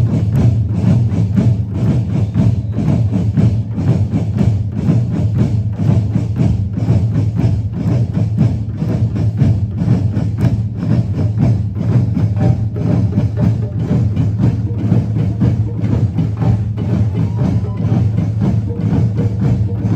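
Music: a steady low drone under a regular, quick beat of sharp wood-block-like clicks, about two to three a second.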